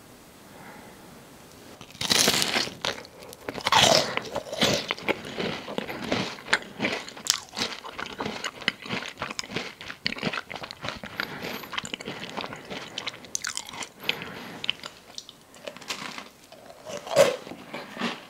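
Crisp-edged chocolate chip cookie being bitten into and chewed close to the microphone. Loud crunches come about two seconds and four seconds in, followed by continual crunching and chewing and one more loud crunch near the end.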